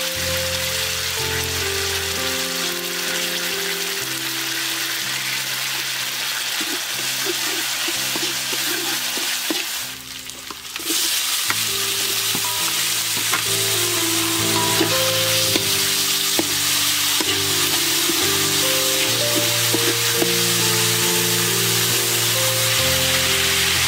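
Chillies and garlic sizzling in hot oil in a metal wok, a steady frying hiss. About ten seconds in the sizzle briefly drops away, then comes back stronger as diced bell peppers are tipped into the oil. Soft background music with long held notes plays underneath.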